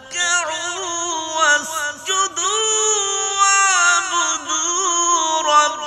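A man's voice in melodic Quran recitation (tajweed), drawing out long ornamented phrases that wind up and down in pitch, with short breath breaks between them.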